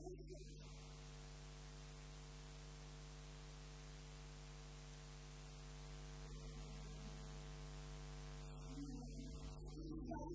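Steady electrical mains hum, with faint wavering sounds at the very start and growing a little louder near the end.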